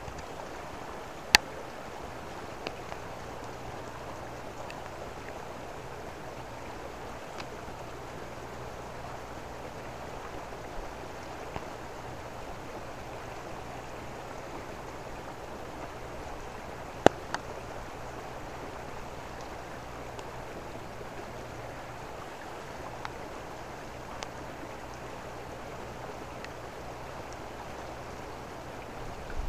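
Raindrops falling through a redwood forest: a steady hiss of water with a few sharp ticks of single drops landing close by, the loudest about a second in and again about seventeen seconds in.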